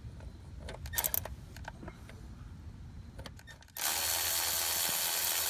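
Cordless electric ratchet running steadily from a little past the middle, spinning out a strut bolt that has already been broken loose by hand. A few light metallic clicks of tool handling come before it.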